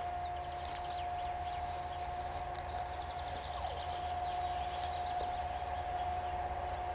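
A GE C36-7i diesel-electric locomotive, with its 16-cylinder FDL engine, approaching from a distance with a freight train: a low rumble and a steady whine, slowly getting louder. Faint bird chirps come over it.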